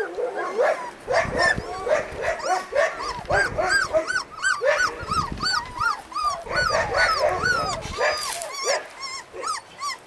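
Husky puppies whimpering and squealing: a dense run of short, high, rising-and-falling cries, several a second, overlapping one another.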